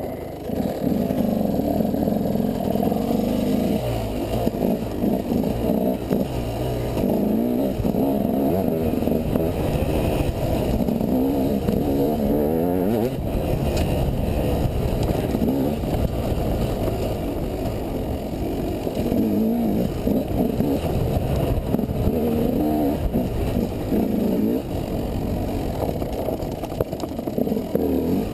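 Enduro dirt bike engine being ridden hard off-road, its pitch rising and falling over and over as the throttle is opened and closed, with rumble and wind noise at the helmet-mounted microphone.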